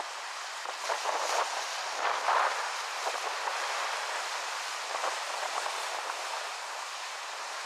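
Steady rushing outdoor noise of wind and waves at an open shore, swelling briefly a few times in the first few seconds.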